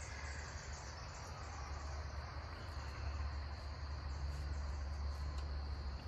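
Crickets trilling in a steady chorus, with a pulsing insect chirp repeating about three or four times a second above it, over a low steady rumble.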